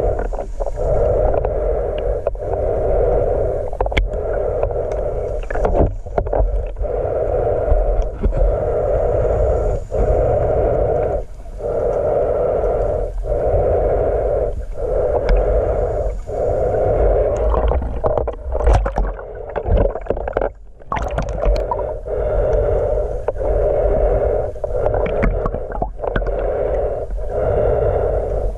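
Muffled water noise picked up by a GoPro in its waterproof housing while swimming. A steady hollow wash breaks off briefly about every one and a half to two seconds, with scattered sharp clicks.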